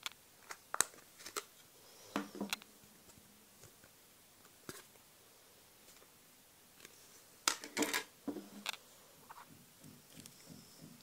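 Plastic back cover of an LG L40 phone being pried off and handled, its clips snapping loose in a series of sharp clicks and small knocks, with the loudest clusters about two seconds in and again about eight seconds in.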